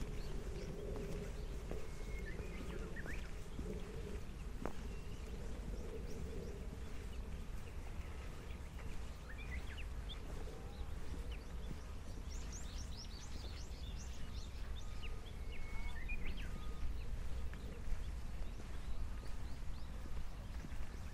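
Open-air hillside ambience: a steady low rumble with birds chirping now and then, and a quick run of high chirps about twelve seconds in.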